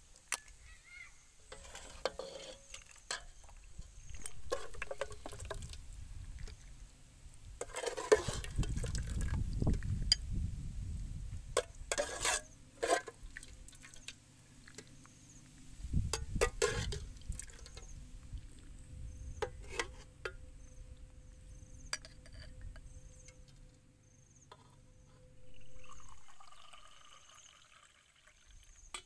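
A metal ladle clinking and scraping against an aluminium soup pot and bowl in scattered sharp knocks, with two stretches of low rumble. Near the end, water is poured from an aluminium kettle into a ceramic mug in one steady pour that swells and then fades.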